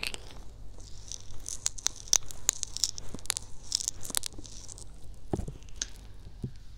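Fingertips rubbing and tapping on the rubber ears of a binaural microphone, heard right at the ear as dense crackly scratching with many small sharp clicks.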